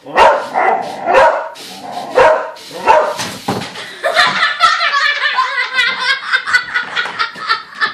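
Dog barking in play, loud sharp barks about once a second, followed over the last few seconds by a quicker run of higher-pitched sounds.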